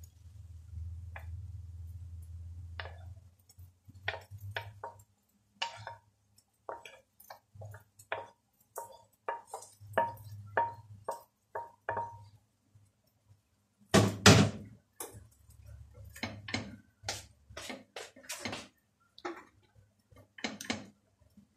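Wooden spatula scraping and tapping against a frying pan as sauce is scraped out onto a plate: a long run of short knocks, several with a brief metallic ring, and a louder cluster of knocks about two-thirds of the way in. A low hum sits beneath the first few seconds.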